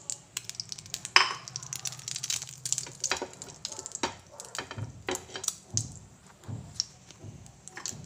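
Oil heating in a non-stick frying pan, crackling and spitting in irregular sharp pops. The pops come thickly through the first three seconds and more sparsely after.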